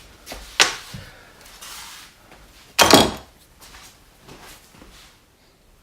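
A few knocks and clatters of tools and fork parts being handled and set down on a workbench, a sharp knock about half a second in and the loudest clatter about three seconds in.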